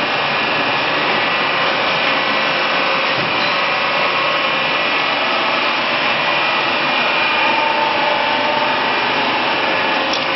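Knife grinder for veneer rotary-lathe knives running, a loud, continuous, even rush of machine noise.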